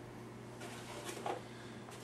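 Quiet room tone with a steady low hum, and a few faint brief rustles around the middle.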